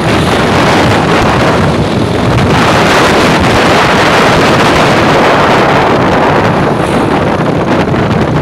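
Heavy wind buffeting the microphone while riding along a road at speed, with the rumble of the moving vehicle underneath.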